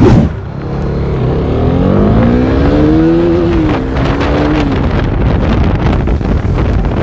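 KTM RC390's single-cylinder engine accelerating on the move: the engine note rises steadily for about two and a half seconds, then drops back around four seconds in and holds steady, under a constant rush of wind noise. A short loud blast hits the microphone at the very start.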